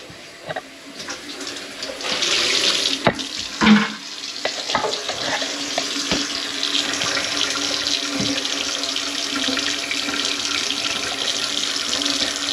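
Water running hard from a tap, the flow getting much louder about two seconds in, with a few knocks in the first seconds of the flow.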